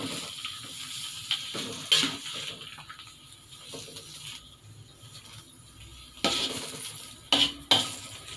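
Metal spatula scraping and knocking against a steel wok while water spinach is stir-fried, with a light sizzle underneath. A few sharp clanks stand out, one about two seconds in and several close together near the end.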